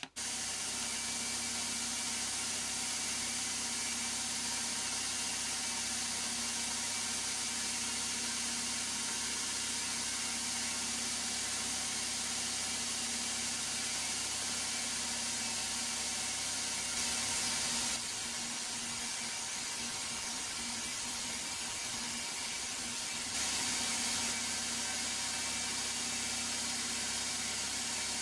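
Milling machine running with an end mill cutting a slot in a metal block: a steady motor hum under a steady hiss, growing slightly louder twice for a second or so.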